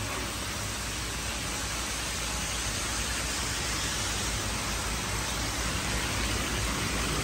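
Water pouring in sheets from a row of wall weir outlets into a koi pond: a steady splashing rush that grows a little louder toward the end. The flow shows a high turnover of the pond's water.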